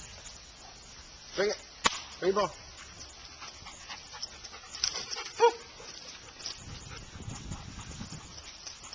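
Black Labrador retriever giving three short barks: two close together about a second and a half in, one more about five and a half seconds in. A sharp click falls between the first two.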